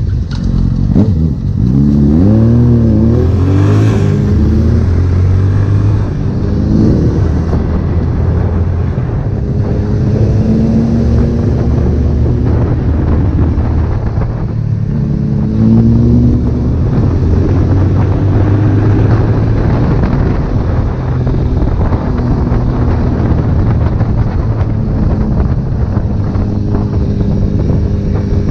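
Honda CB1000R's inline-four engine running under way, its pitch climbing and falling with throttle and gear changes: a quick run of short rises about two to four seconds in, then further long rises and drops.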